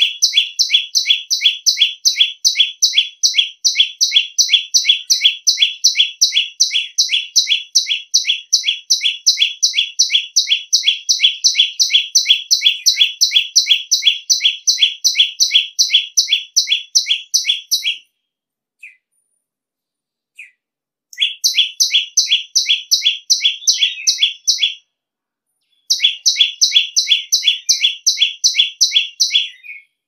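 A caged prinia singing a long, rapid run of identical sharp notes, about three a second, each sliding down in pitch. The run breaks off a little past halfway for a few seconds with only two single notes, then starts again, with one more short break near the end.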